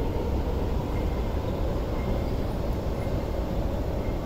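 MTR West Rail Line electric train moving out along an underground station platform behind platform screen doors: a steady low rumble.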